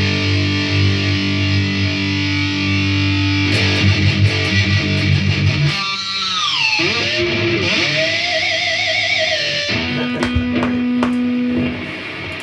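Distorted electric guitar through an EarthQuaker Devices Astral Destiny effects pedal: a held low, doomy chord, then about six seconds in a note slides steeply down in pitch and gives way to wavering held notes, followed by another sustained note near the end.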